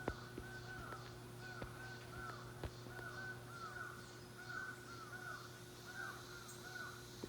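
Faint calls from distant birds: short arched notes repeated over and over, with a few soft clicks.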